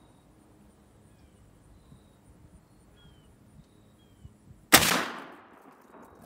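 A single muzzleloader rifle shot near the end: one sharp, loud report followed by a rolling echo that fades away over about a second.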